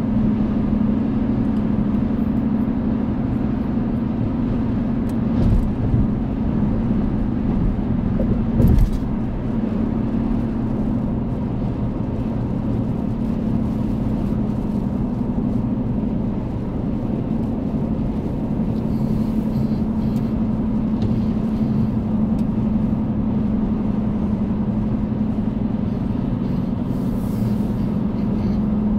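Steady drone of a car driving at freeway speed, heard from inside the cabin: engine and tyre noise. Two brief thumps, about five and a half and nine seconds in, are the loudest moments.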